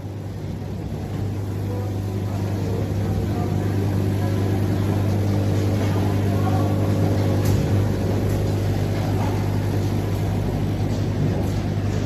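Washing-powder packing machine running, with its weigher feeding powder: a steady low hum that grows a little louder over the first few seconds.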